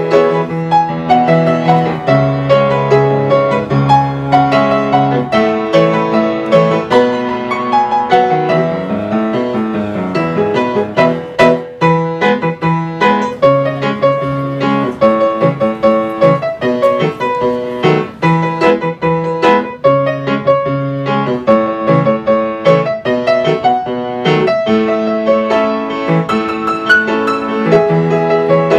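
Background piano music, a continuous flowing run of notes.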